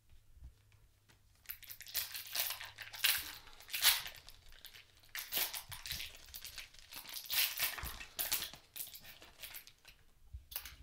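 Wrapper of a Panini Prizm basketball card pack crinkling and crackling as it is handled and torn open. The crinkling starts about a second and a half in and comes in irregular bursts until shortly before the end.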